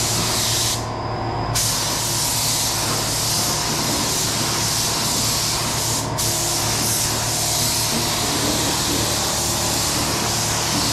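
Air-fed paint spray gun spraying epoxy top coat in a steady hiss, with the trigger let off for under a second about a second in and again for an instant about six seconds in. A steady low hum runs beneath.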